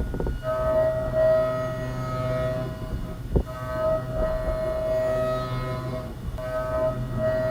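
CNC milling cutter in the cut, giving a steady high whine with overtones. It breaks off briefly twice, with a sharp click a little past three seconds.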